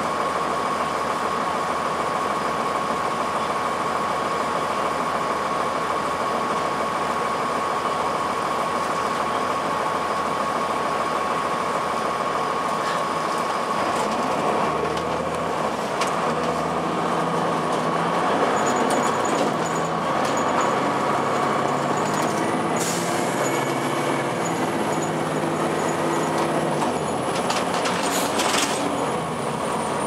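Transit bus's Cummins ISC diesel engine idling, heard from inside the bus. About halfway through it revs up as the bus pulls away, its pitch climbing and dropping back in steps as the Allison automatic transmission shifts up. A high whine joins as the bus gathers speed.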